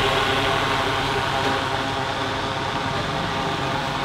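Electric fan blowing air into a fire in a clay stove: a steady rush of air and flame with a low motor hum, fanning the fire that heats clay tea cups.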